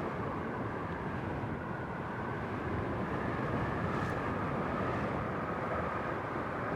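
Steady engine drone of an aircraft in flight, with a faint, level high whine over a broad, even rumble.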